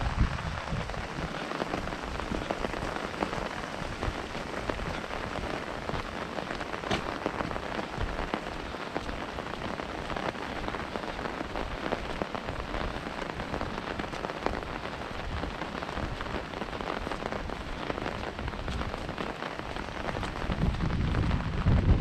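Steady rain falling on an umbrella overhead, a dense even hiss of drops. Gusts of wind on the microphone add a low rumble that grows louder near the end.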